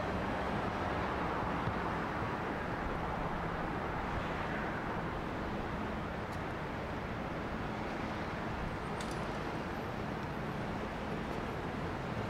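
Steady city street traffic noise at a road junction: the running engines and tyres of passing cars, vans and buses, with a couple of faint sharp ticks about six and nine seconds in.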